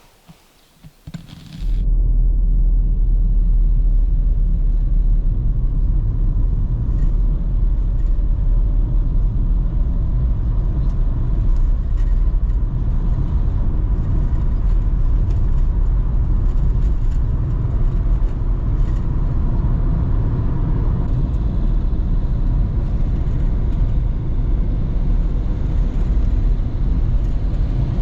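A loud, steady low rumble that cuts in suddenly about two seconds in and holds, with faint ticks above it.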